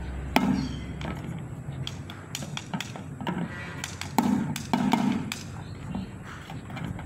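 Drumsticks striking upturned metal paint cans used as bucket drums, in a string of irregular hits, each with a short ring. The hits are loudest about four to five seconds in.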